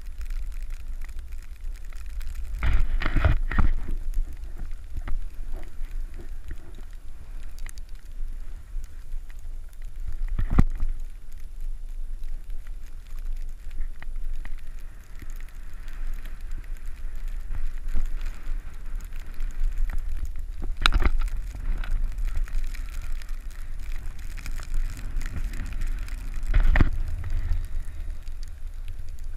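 Wind rumbling on the camera's microphone while riding downhill, with the hiss of sliding over snow. There are four louder thumps spread through it.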